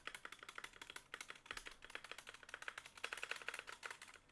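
Rapid typing on a SteelSeries Apex Pro Mini keyboard with OmniPoint linear switches: a fast, uneven run of light key clacks.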